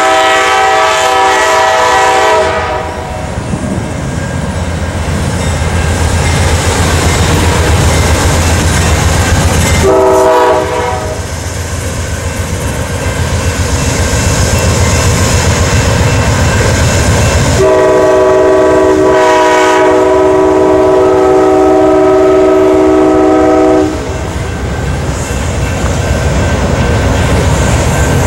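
Amtrak GE P42DC Genesis diesel locomotive sounding its horn chord three times as the passenger train passes: a long blast at the start, a short one about ten seconds in, and a long blast of about six seconds from about eighteen seconds in. Under the horn runs the steady rumble of the engine and the clickety-clack of the cars' wheels over the rails.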